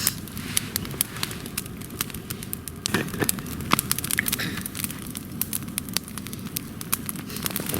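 Wood campfire burning well, crackling with frequent sharp pops and snaps.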